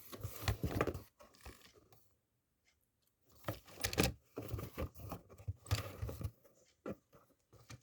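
Cardboard shipping box being torn open, its tape and packaging ripping and crinkling in two spells with a pause of about a second between.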